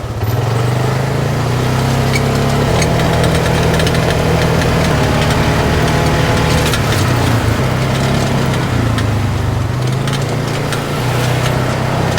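Polaris RZR 570 side-by-side's single-cylinder engine running on the move, its pitch stepping up and down a few times as the throttle changes, with scattered clicks and rattles over the dirt track.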